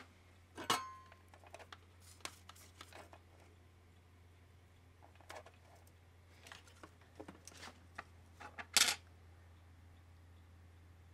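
Scattered small clicks and taps of soldering tools being handled against a circuit board and workbench, the loudest near the end, over a faint steady low hum.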